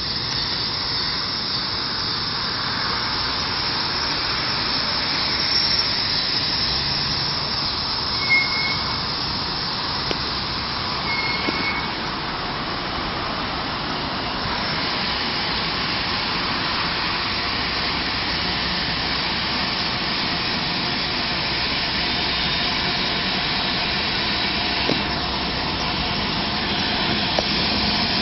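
Medical helicopter's turbine engine and rotor running steadily on its pad, an even whine and rush of air that neither rises nor falls.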